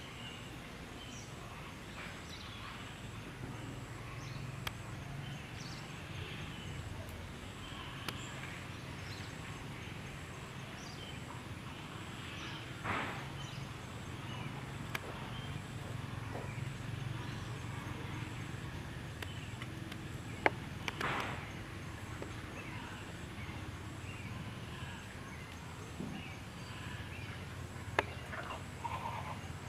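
Outdoor background sound: a steady low hum under scattered faint short chirps, with a few sharp clicks and a couple of brief rustling rushes partway through.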